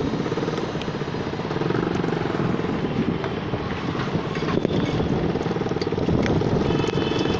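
Steady road traffic noise: motor vehicles running close by, with a dense rush of noise over the microphone of a phone carried on a moving bicycle.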